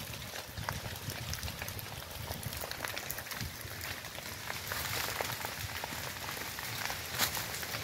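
Wildfire burning through dry grass and brush: a steady hiss with many sharp crackles and pops, a few louder pops near the end.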